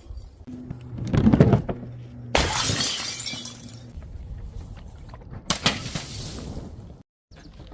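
Glass breaking: two sudden crashes of shattering glass, about two and a half and five and a half seconds in, each dying away over about a second. A heavy low thud comes about a second in.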